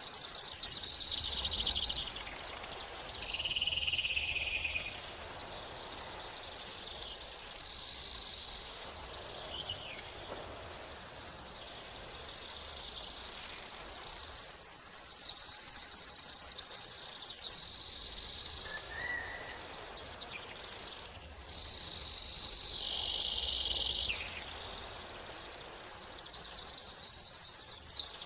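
AI-generated nature ambience from Stable Audio 3: repeated high-pitched trilling calls like insects and birds over a steady background hiss, with a low rumble under the louder stretches.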